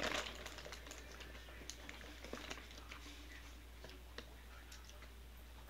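Faint chewing of peanut butter–coated popcorn, with a few soft crunches and clicks over a low steady hum.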